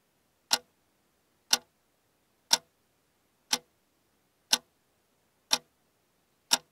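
Clock ticking once a second: seven sharp, evenly spaced ticks with silence between them.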